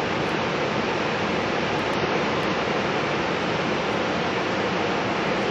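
River floodwater rushing through the open spillway gates of a lock and dam, a steady, even rush of churning water with no letup.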